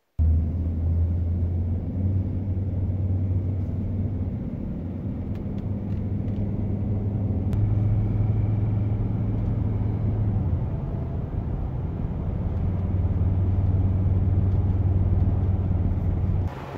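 A car driving along a motorway, heard from inside the cabin: a steady low engine and road drone.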